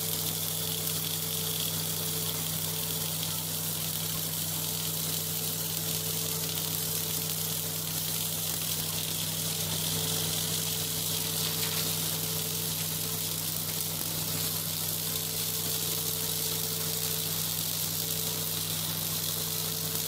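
Automatic orbital pipeline-welding head's arc hissing and sizzling steadily as it runs a weld around a pipe joint, over a steady low hum.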